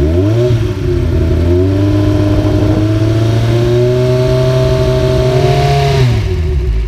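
Kawasaki Z1000's inline-four engine through an Akrapovič GP-series exhaust with the baffle removed, revved up from idle and held steady at fixed revs, about 5000 rpm, for a static sound-level test. It falls back to idle about six seconds in.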